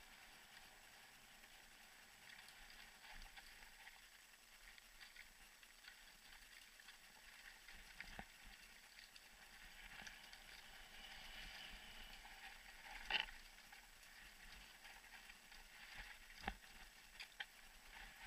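Faint rolling noise of a mountain bike on a dirt trail, with a few short sharp knocks, the loudest about two-thirds of the way through.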